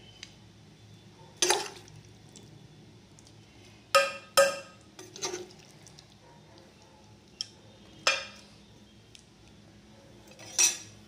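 Metal serving spoon knocking and clinking against an aluminium pot and a non-stick pan while spooning cooked chicken onto a layer of rice: about seven irregular knocks, a couple with a short metallic ring.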